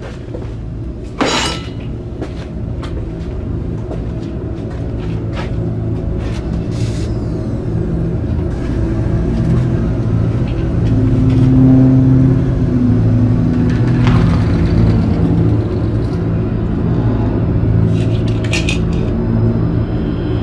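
Horror film score: a dark, low droning music bed that swells slightly in the middle, with scattered sharp hits and cracks over it, the strongest about a second in.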